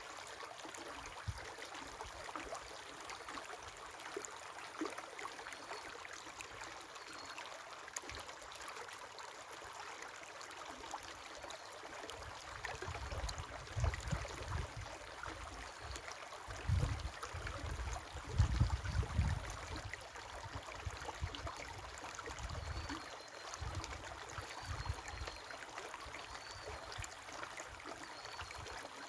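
River water flowing with a steady rushing. From a little before halfway in, low irregular rumbles come and go, loudest just past the middle.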